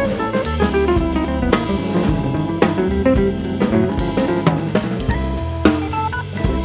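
Background music: an instrumental track with drum kit, bass and melodic notes over a steady beat.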